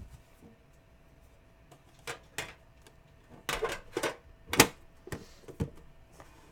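A trading card box and its packaging being handled, giving a string of irregular sharp clicks and taps, loudest about four and a half seconds in.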